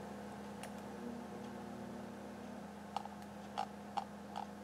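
Quiet room tone: a faint steady hum with light hiss, and a few faint short clicks spread through the last part.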